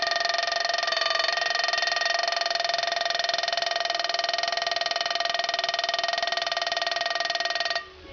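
Alarm bell of a 1957 Schuler mechanical wind-up alarm clock ringing, its hammer striking the metal bell in a fast continuous rattle. It cuts out briefly near the end.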